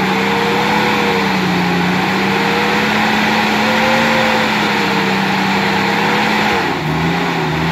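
Ford Ranger pickup's engine revved hard and held at high revs as its wheels spin in deep mud. The revs dip briefly near the end, then pick up again.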